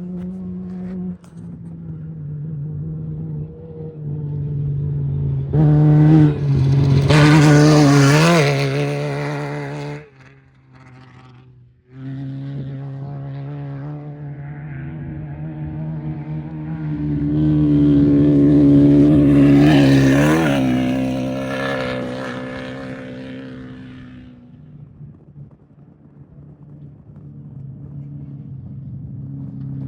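Off-road race vehicles driving past at speed, each engine note swelling to a peak and dropping in pitch as it goes by, twice, about 8 and 20 seconds in. A steady engine drone sits under it, with an abrupt cut to near quiet for about two seconds after the first pass.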